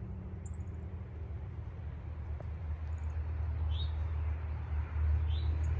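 Low, steady hum of a vehicle engine running, growing a little louder toward the end, with two short bird chirps about four and five seconds in.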